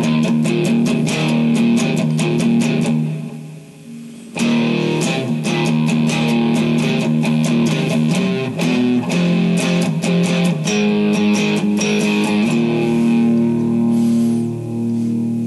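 Guitar-based music, electric guitar with bass, with a dense run of sharp strokes. It fades down about three seconds in and cuts back in at full level about a second later.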